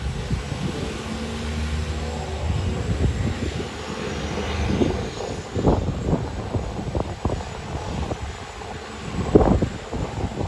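Propeller seaplane engines droning steadily, with a run of low buffeting thumps in the second half, the loudest about nine seconds in.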